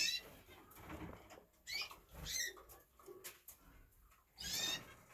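Caged canaries giving short, high chirping calls, about four separate chirps, with light taps and clicks between them.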